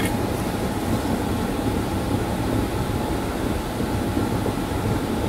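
Steady machine hum and air noise, with a faint steady tone above it.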